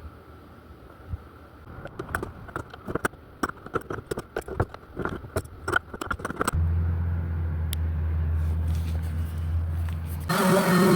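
Irregular clicks and knocks, then a steady low hum, then about ten seconds in an engine starts running, louder.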